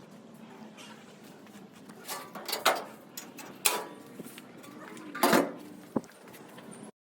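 About five sharp metal clanks and knocks of tools or metal parts over a steady low hum, the loudest roughly two and a half, three and a half and five seconds in; the sound cuts off abruptly just before the end.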